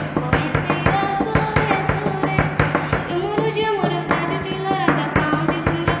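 Odia Krishna bhajan: a child's singing voice gliding up and down over a steady percussion beat and a low held drone.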